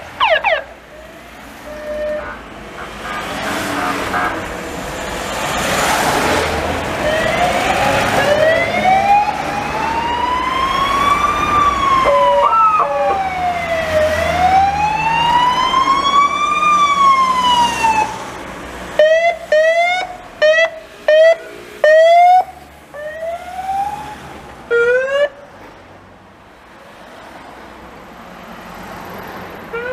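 Police car siren sounding as parade cars drive past. It gives two slow wails that rise and fall, then about two-thirds of the way through switches to a series of short, loud rising whoops, over the noise of passing cars.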